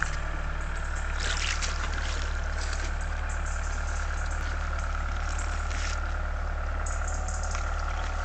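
River water flowing, over a steady low rumble on the microphone, with a thin steady whine and a few faint clicks.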